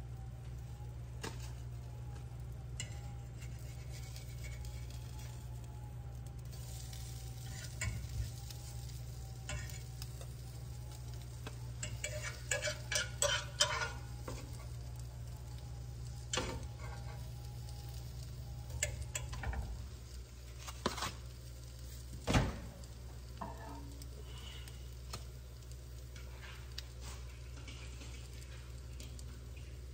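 A spatula scraping and tapping in a nonstick frying pan while eggs and bacon sizzle, over a steady low hum. A quick run of taps comes a little before the middle, and one sharp knock about three quarters through.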